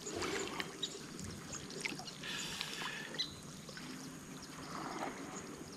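Water trickling and sloshing gently, with a few faint small clicks.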